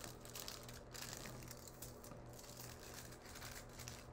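Aluminium foil crinkling faintly in irregular little crackles as it is folded and pressed flat by hand.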